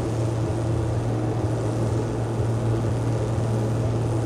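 Tractor diesel engines idling at a steady low hum, with no change in pitch or revs.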